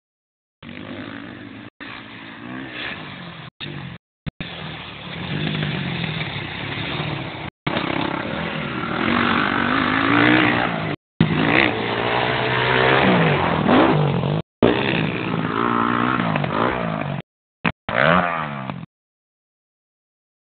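Motocross dirt bike engine revving up and down as the bike rides the track, its pitch rising and falling repeatedly. The sound cuts out abruptly several times for a moment and goes silent near the end.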